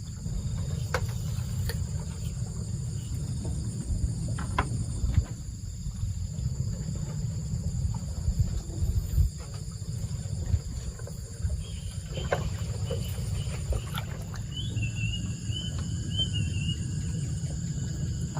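Outdoor rural ambience: a steady low rumble with faint insect chirring high above it and scattered light clicks; a wavering high-pitched call comes in during the last few seconds.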